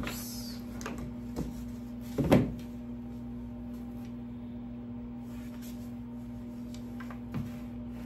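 Thin wooden dollhouse kit pieces being handled and set down on a table: a few light knocks and taps, the loudest about two seconds in, over a steady low hum.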